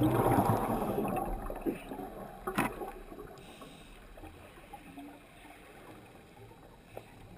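Underwater water noise: a gurgling wash in the first second that fades away to a low, even hush, with a single sharp click about two and a half seconds in.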